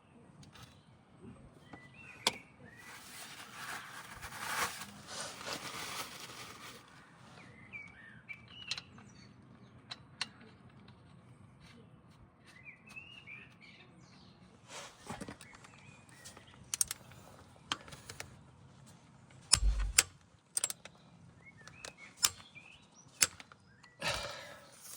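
Scattered clicks and knocks from hand work on the rear differential while new oil is put in, with a few seconds of hiss a few seconds in. Birds chirp in the background.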